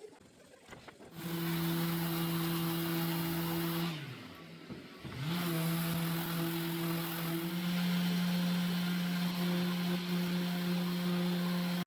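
Table saw motor starting up and running at a steady pitch. About 4 seconds in it winds down and stops, then spins back up about a second later and runs steadily again.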